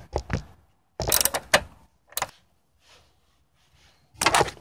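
Metal clicks and clatter from bolting down a car battery's hold-down bracket: a few short clicks, with louder rattling bursts about a second in and again near the end.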